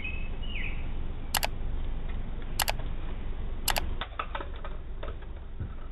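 Three sharp clicks about a second apart, then a quick run of fainter clicks and taps, over a steady low hum.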